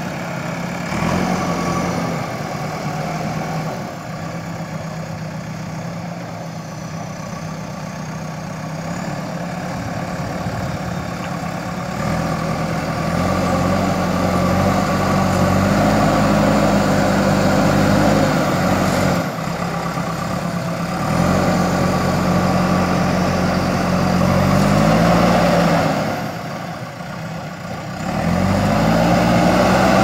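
JCB 3DX backhoe loader's diesel engine working as the front loader bucket pushes and lifts soil. It revs up under load and eases back several times, dropping to a low idle for a couple of seconds near the end before revving up again.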